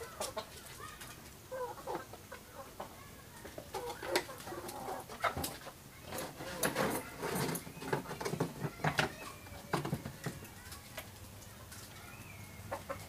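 Wooden chair knocking and scraping as it is handled and turned over on a metal-topped workbench, a string of sharp knocks loudest in the middle, with short animal calls in the background.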